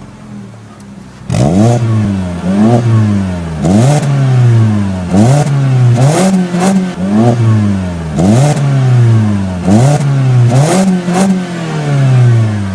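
Citroen DS3 1.6 THP turbocharged four-cylinder breathing through an Inoxcar Sport exhaust. It idles briefly, then is revved in quick blips from about a second in, roughly one a second, each rising sharply in pitch and dropping back.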